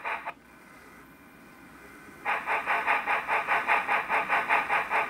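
Model Bachmann steam locomotive held in place with its drivers spinning on a rag soaked in isopropyl alcohol, scrubbing dirt off the wheel treads. It runs as a rhythmic mechanical pulsing at about four beats a second, starting a couple of seconds in.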